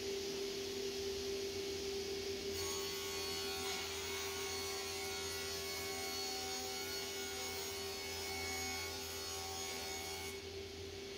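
Sliding table panel saw with its motor humming steadily, cutting through a large wood panel as the sheet is fed past the blade. The cutting starts about two and a half seconds in and stops shortly before the end, leaving the saw running free.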